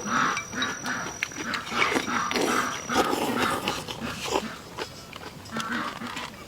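A person chewing a mouthful of stir-fried vegetables close to the microphone, with wet mouth sounds at about three chews a second.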